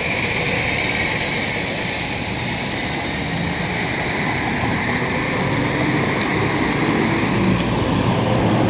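Street traffic: a Nova Bus city bus pulling away from the stop and a car passing, giving a steady mix of diesel engine and tyre noise.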